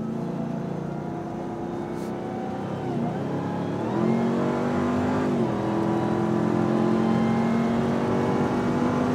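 Ram TRX's 6.2-litre supercharged V8 under hard acceleration, heard from inside the cab. The engine note jumps up about four seconds in, drops back at a gear change a second and a half later, then climbs steadily as the truck keeps pulling.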